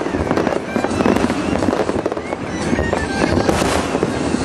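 Fireworks display: aerial shells bursting in a continuous dense crackle of pops and bangs, with a thin rising whistle about halfway through.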